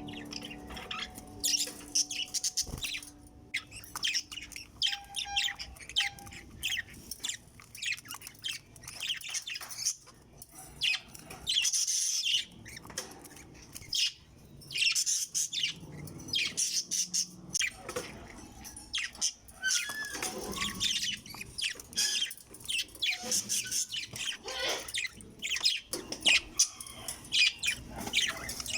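Lovebirds chirping: many short, high calls in quick succession.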